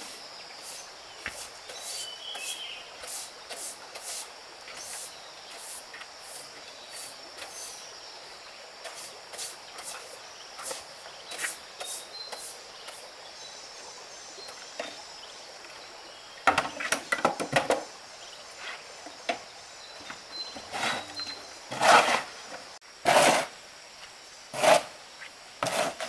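Broom sweeping sawdust: soft, fairly regular strokes in the first half, then louder, uneven scraping strokes from a little past the middle. A faint steady high-pitched hum runs underneath.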